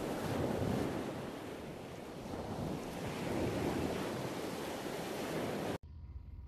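Sea surf: a steady wash of waves that swells and eases, then cuts off suddenly near the end. A quieter low rumble follows.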